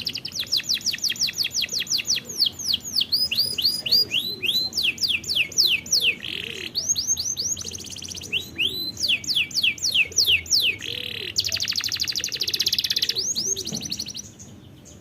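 Domestic canary singing in phrases: very fast trills alternate with runs of downward-sweeping whistled notes repeated several times a second. The song stops near the end.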